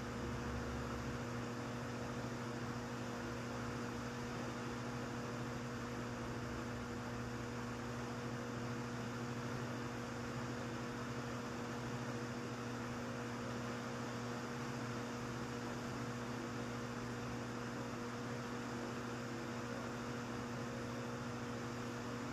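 Steady electrical-sounding hum: a constant low tone with fainter higher overtones over an even hiss, unchanging throughout. A deeper rumble underneath cuts out about a second in.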